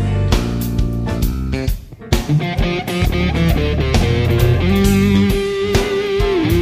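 Rock music with electric guitar and drums. It drops out for a moment about two seconds in, and a long held note dips in pitch near the end.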